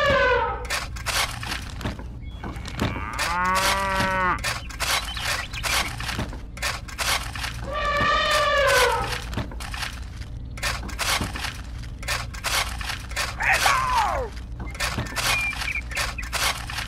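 Cow mooing several times, the calls about four seconds apart, each rising and then falling in pitch. A busy run of small ticks and scratches goes on underneath.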